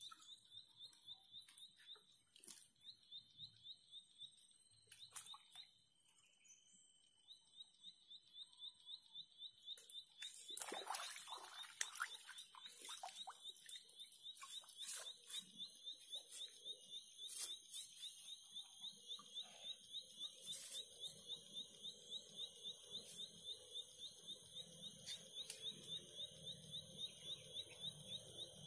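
An animal's rapid, high-pitched pulsing call, repeating steadily, with a break about five seconds in. Scattered short clicks and rustles from handling the fishing rod are heard, loudest about ten to twelve seconds in.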